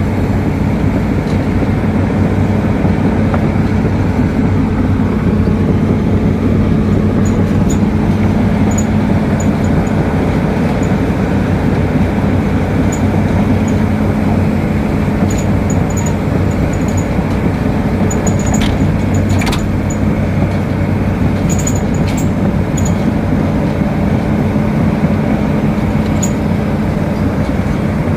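Hyundai excavator's diesel engine running steadily at a constant speed, with a few faint ticks scattered through.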